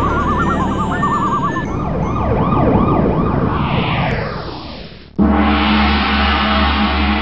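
Sci-fi logo-intro sound effects: a warbling tone and a run of zapping chirps over a swelling whoosh that sweeps downward and fades. About five seconds in, a loud gong-like chord with a deep hum hits suddenly and holds.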